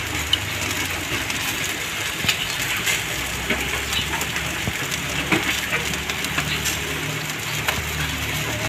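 Pork sizzling and crackling on a wire grill over charcoal: a steady hiss dotted with small pops and ticks. A low hum runs underneath at times.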